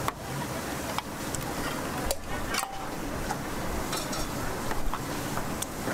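Stainless steel bowls, trays and utensils clinking several times as shucked oysters are handled, over a steady background hiss.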